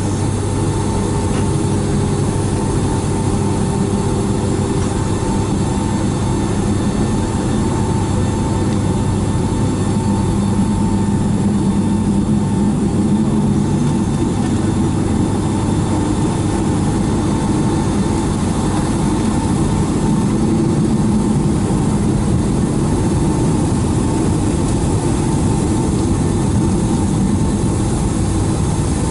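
Cabin noise inside a Boeing 757-200 on the ground before takeoff: its jet engines running steadily at low power, a constant low rumble with a faint steady tone above it.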